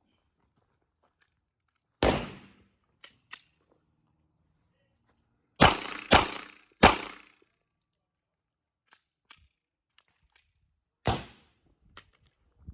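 Five gunshots from an Arsenal SAM7SF 7.62×39 rifle, each ringing out briefly. One comes about two seconds in, then a quick string of three in just over a second, then one more near the end. Lighter clicks and knocks fall between the shots.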